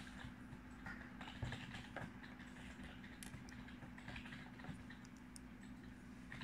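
Scattered light clicks and taps of white plastic oral paste syringes being handled, their plunger and cap parts knocking and clicking together, the loudest about a second and a half in. A faint steady hum runs underneath.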